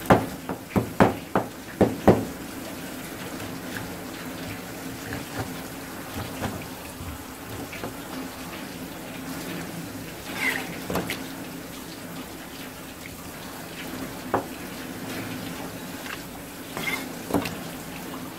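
Tap water running and splashing steadily onto a plastic cutting board while a fish is cleaned under it. A quick run of about six sharp knocks from the knife against the fish and board comes in the first two seconds, with a few more single knocks later.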